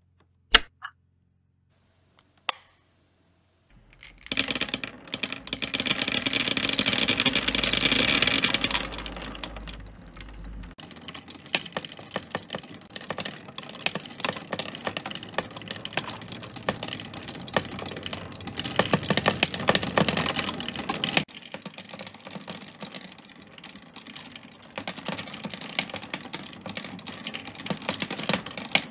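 Two sharp clicks as a battery is snapped into the control box and the machine is switched on, then a motor-driven wooden double-wheel marble lifter starts running: glass marbles clatter rapidly against the turning plywood wheels and roll along wooden tracks. The clatter is busiest over the first few seconds of running, with a low hum beneath it, then settles into a steadier rattle.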